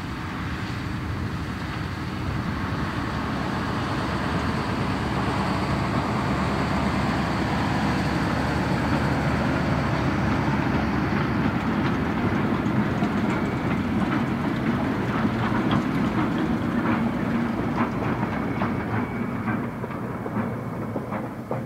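Diesel train passing: a Class 03 shunter and its coaches rumbling by, the wheels clicking over rail joints as the carriages go past, then fading as the train moves off at the end.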